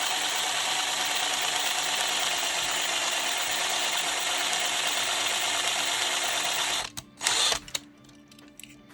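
Drill bit boring into the rivet of a diecast toy car, a steady grinding that makes a pilot hole for a screw. It cuts off near the end, followed by a couple of short knocks.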